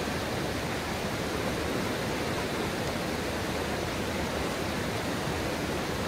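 Water running over the rocks of a shallow stream and a small cascade, a steady, even hiss with no breaks.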